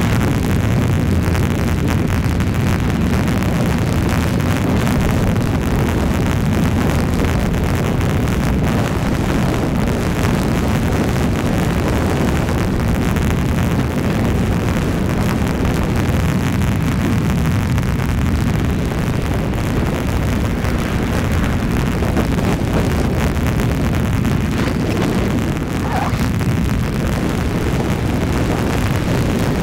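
A car driving steadily along a paved highway: constant low rumble of tyres and engine mixed with wind noise on the microphone.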